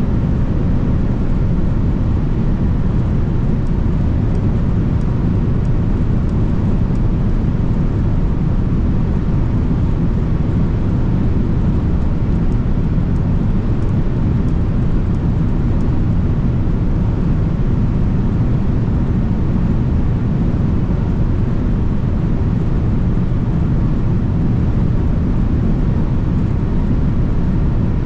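Steady low rumble of road and wind noise inside the cabin of a 2024 Mercedes-Benz C220d diesel saloon on the move, holding at an even level with no change in pace.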